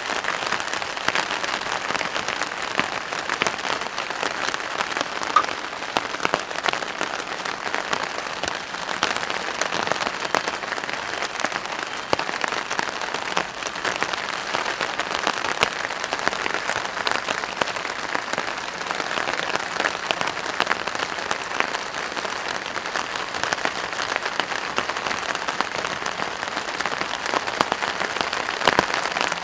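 Steady rain drumming on a plastic patio tarp: a dense, even patter of drops ticking on the stretched sheet.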